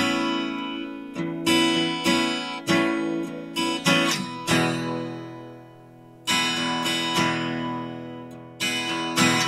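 Acoustic guitar music: strummed chords, each struck sharply and left to ring out. The playing fades away about five seconds in, then starts again with fresh strums.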